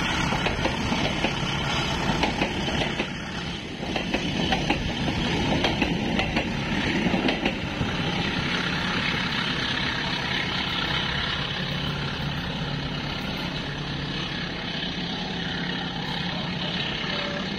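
Passenger train coaches rolling past close by, steel wheels on the rails making a rapid clatter through the first half, then a smoother, slightly quieter rolling noise as the last car, a baggage wagon, moves away.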